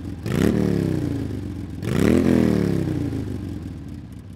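2021 Royal Enfield Himalayan's 411 cc single-cylinder engine revved twice, each blip rising quickly in pitch and falling away slowly, then fading out near the end.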